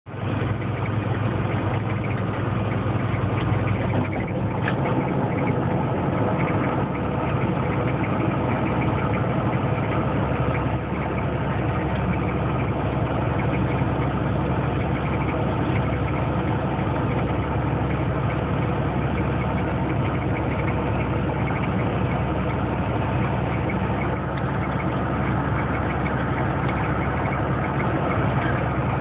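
Heavy truck's engine running steadily while driving at highway speed, heard from inside the cab. A brief click about five seconds in.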